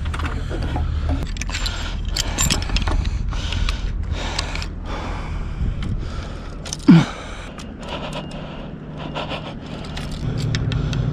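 Irregular knocks, clicks and rattles of rigging and masthead hardware as a person is hoisted up a sailboat mast and takes hold of the fittings at the top, over a low steady rumble. About seven seconds in comes one short, loud grunt-like sound.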